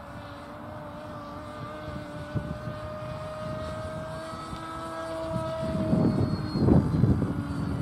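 Radio-controlled model aeroplane's engine and propeller running overhead as a steady tone whose pitch creeps up and then falls away about five seconds in. From about five and a half seconds in, low rumbling wind buffeting the microphone is the loudest sound.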